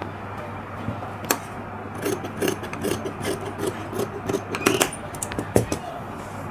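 Tailoring scissors snipping through folded blouse fabric: a quick run of cuts, about four a second, from about two seconds in until near five seconds, with a few sharper clicks and fabric rubbing around them.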